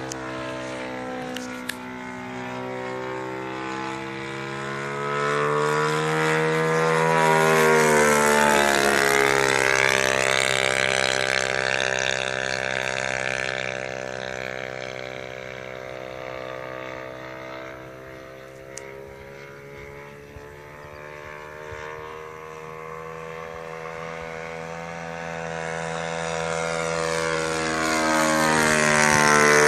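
Radio-controlled P-40 Warhawk model plane's motor and propeller droning through fly-bys. The sound swells and bends in pitch as the plane comes close and passes, fades as it flies off about midway, then swells and rises in pitch again near the end.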